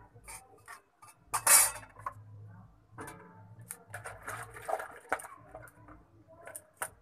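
Flat steel spatula scraping and clinking against a dry metal kadai as cumin seeds and a bay leaf are dry-roasted without oil, in scattered strokes with the loudest scrape about a second and a half in.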